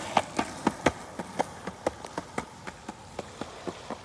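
Skateboard wheels rolling on a concrete sidewalk, clacking over the slab joints in a quick, even beat of about four clicks a second that fades as the board moves away.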